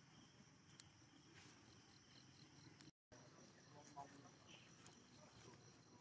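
Near silence: faint outdoor ambience with a steady high insect drone, broken by a brief dropout to total silence about halfway through.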